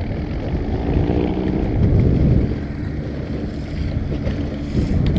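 A 50 hp Mercury outboard motor runs with a steady drone while the boat is under way over choppy water, with wind buffeting the microphone and water splashing off the hull.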